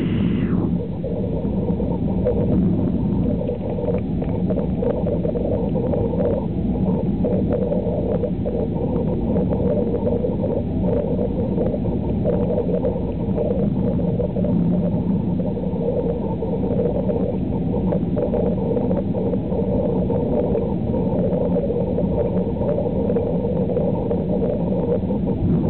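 Steady low cabin drone of a Boeing 737-300 descending on approach to land: its CFM56 jet engines and the rushing airflow, heard from a window seat over the wing.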